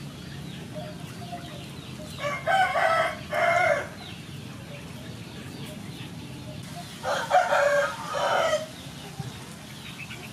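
A rooster crowing twice, each crow about a second and a half long, the second one about five seconds after the first.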